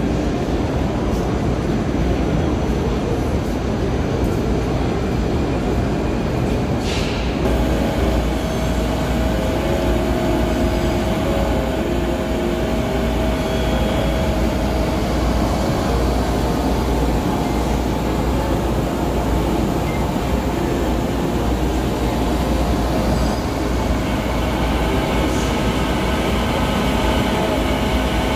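Steady loud mechanical rumble and hiss of machinery running, with a faint steady tone joining in about seven seconds in.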